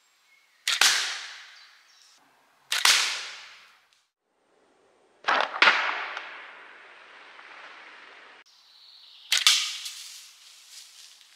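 Shots from a homemade PVC-pipe slingshot at hanging targets: four sharp cracks, each dying away over about a second, the third a quick double crack.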